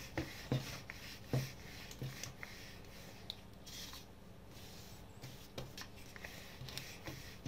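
Rolling pin rolling out yeast bread dough on a floured countertop: a faint rubbing, with a few soft knocks as the pin meets the board.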